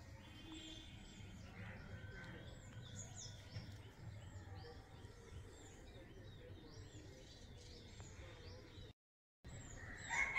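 Faint chirping of small birds: many short, high calls, repeated over and over, over a low background hum. The sound cuts out briefly near the end.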